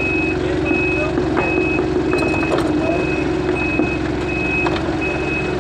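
Forklift reversing alarm beeping: short high beeps at an even pace, about one every 0.7 seconds, over the steady running hum of the forklift.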